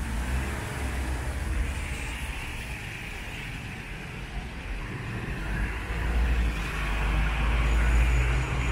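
Traffic on a wet city street: steady tyre hiss with the low rumble of passing engines, and a heavier rumble building from about six seconds in.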